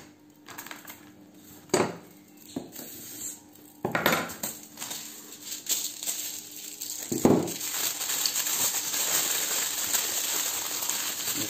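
Aluminium foil being handled: a few sharp rustles and knocks as foil is pulled and torn from the roll, then a steady dense crinkling through the second half as the foil is crumpled and folded into a packet around wood chips.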